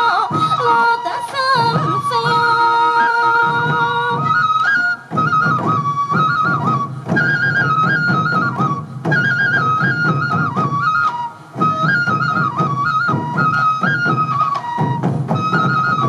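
Live sansa odori music: a yokobue, the Japanese transverse bamboo flute, plays a stepping melody over the beat of many sansa taiko drums. The flute breaks off briefly twice.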